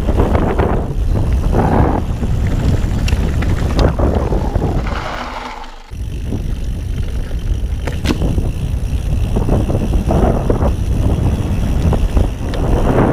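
Wind buffeting the microphone over the rumble of a Ghost Riot mountain bike's tyres on a dirt forest trail, with a few sharp clicks and knocks from the bike over bumps. About five seconds in the sound fades away and then cuts back in.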